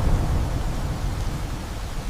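Thunder rumbling low and slowly fading away over steady heavy rain.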